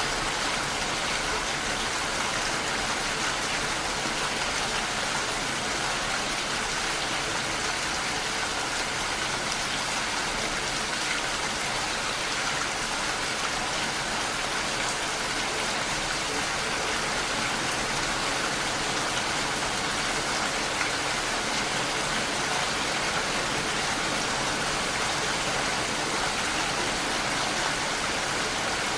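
Steady rain falling, an even hiss without pauses.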